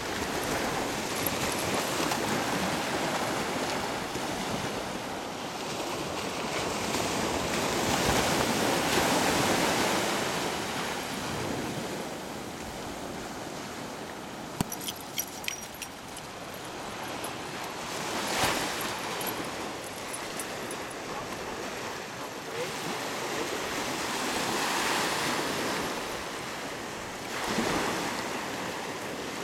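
Small waves breaking and washing up a sandy beach, the surf swelling and fading every few seconds. A few sharp clicks come about halfway through.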